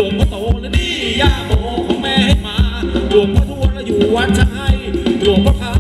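A live band playing Thai ramwong dance music: a quick, steady drum beat under a wavering sung or played melody.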